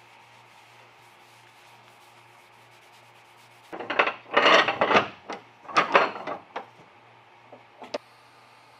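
Wooden baseball bat rubbed and scraped against the jaws of a bench vise as it is set in place: several loud wood-on-wood strokes starting about four seconds in, then a light knock near the end.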